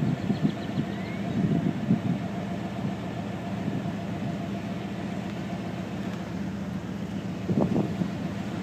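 A steady low engine hum, like a vehicle idling, with some noise over it and no sudden bangs.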